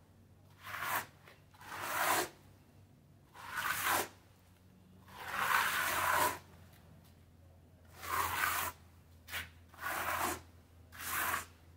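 Plastic hand float scraped across wet mortar on a rough cement wall, spreading and smoothing a thin skim coat. There are about eight separate strokes, each a second or less, with short pauses between.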